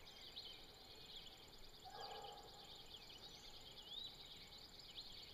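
Faint, distant hound bawling once, about two seconds in, over small birds chirping and a steady high insect trill. The hunter takes it as a sign the hounds may have the bear treed.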